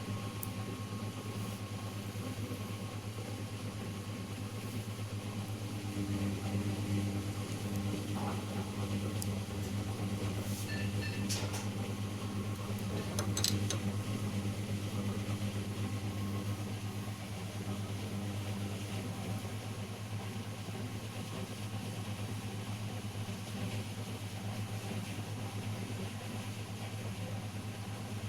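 Steady low machine hum with a few light clicks of handling near the middle.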